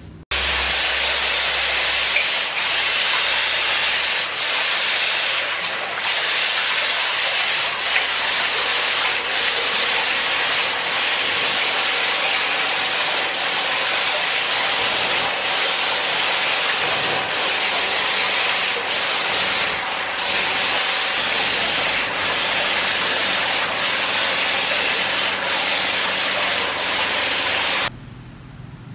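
Compressed-air paint spray gun hissing steadily as it sprays clear coat, with two short dips in the hiss along the way. It cuts off abruptly near the end.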